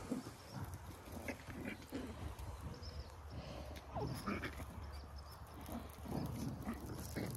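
Puppies play-fighting, making scattered short growls and yips.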